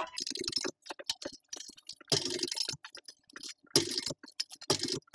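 Industrial walking-foot sewing machine (TechSew 2750 Pro) stitching slowly in short bursts through leather and fabric layers, its needle and feed mechanism clicking stitch by stitch with brief stops in between.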